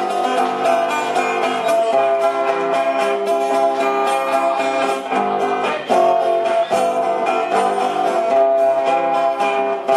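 Viola caipira playing an instrumental passage of quick plucked notes, with no singing.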